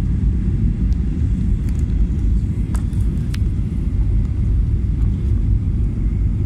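Airliner cabin noise heard at a window seat during the landing approach: a loud, steady low rumble of engines and airflow, with a couple of faint clicks about three seconds in.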